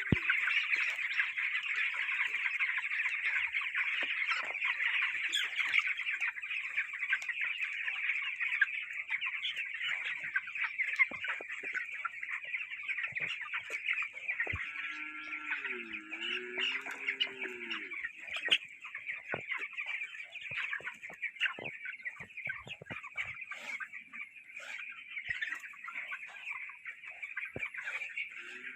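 A large flock of 16-day-old broiler chicks peeping continuously in a dense, high-pitched chorus, with scattered sharp clicks. A lower, wavering call stands out for a few seconds about halfway through.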